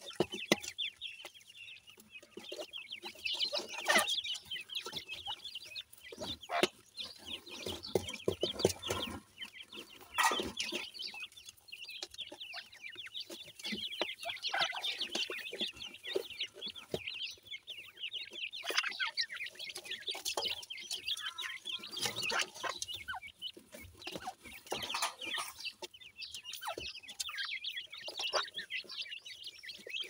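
Grey francolin chicks cheeping: many short, high calls in quick succession that carry on throughout, with scattered rustles and taps of loose soil.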